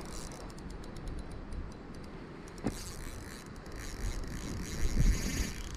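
Spinning reel clicking in a fast run of ticks for the first two and a half seconds, then a rougher steady whir, while a hooked trout is fought on light line. Low thumps sound near the end.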